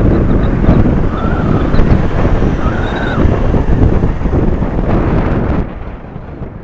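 Wind buffeting a helmet-mounted microphone while riding a TVS motorcycle at road speed, with the bike's engine and tyre noise underneath as a steady rumble. The sound drops and dies away near the end.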